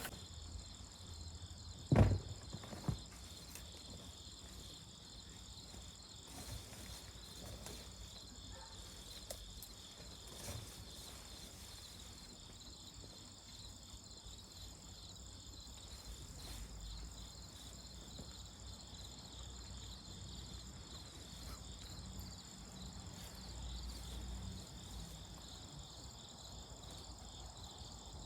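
Insects chirping outdoors in a steady, high-pitched pulsing chorus. Two sharp knocks come about two seconds in.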